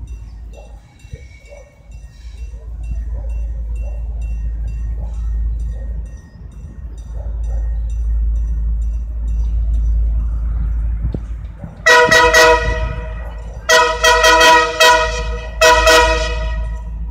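Air horn of an approaching CNR CKD8H diesel-electric locomotive sounding three blasts, each a chord of several tones, the middle one longest, starting about twelve seconds in. Before the horn there is a low steady rumble that grows louder as the train draws near.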